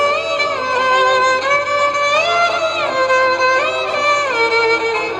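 Outro music: a single melody line that holds notes and slides smoothly up and down between them.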